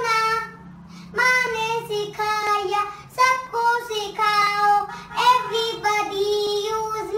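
A young boy singing a song solo, in short phrases with held notes and brief pauses between them.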